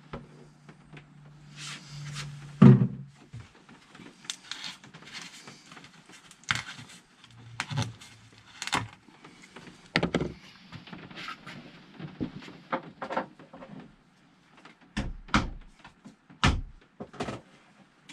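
A string of knocks, clicks and clatters from plastic oil bottles being handled while topping up a motorcycle engine with oil. The loudest is a single thump about two and a half seconds in, and a low hum runs before it.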